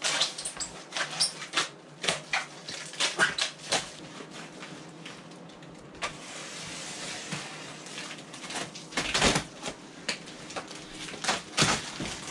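Cardboard packaging and plastic stretch wrap being cut, ripped and handled while flatpack MDF cupboard panels are unpacked: a run of sharp crackles, rips and rustling, with two heavier knocks of wooden panels about nine seconds in and again near the end.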